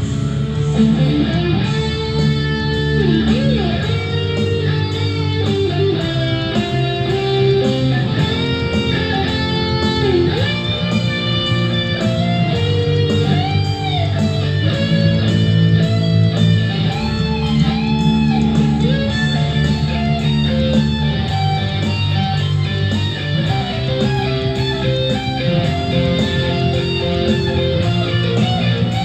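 Electric guitar played through a DigiTech RP500 multi-effects processor: a melodic lead line with string bends over sustained low notes.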